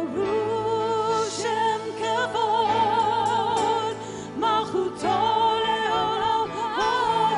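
Live worship band playing, with singers holding long notes with a wide vibrato over steady keyboard and band accompaniment, and a short break between phrases about halfway through.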